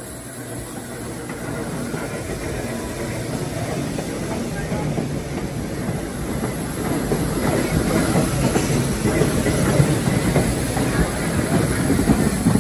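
A New York City subway train running on the rails, its rumble and wheel clatter growing steadily louder.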